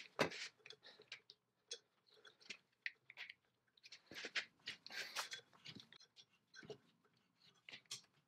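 Faint, irregular light clicks, taps and scrapes of hand work on small parts, with a brief busier cluster about halfway through.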